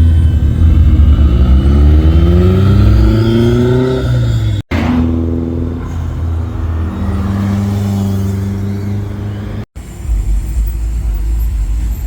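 A car engine revving, its pitch climbing steadily for about four seconds. Then, after an abrupt cut, comes a steadier engine note, and after a second cut a low rumble.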